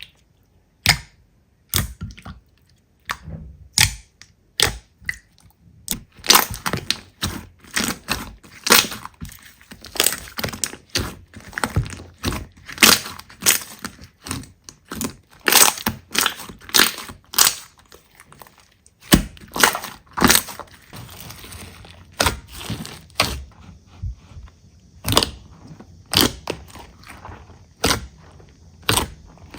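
Slime being squeezed and pressed by hand, giving a long irregular run of sharp pops and crackles, several a second at times.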